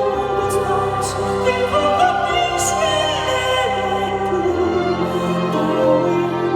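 Pop-opera song performed live: a male singer holds a wavering, operatic melody over orchestral accompaniment, with a few cymbal-like strikes in the first couple of seconds.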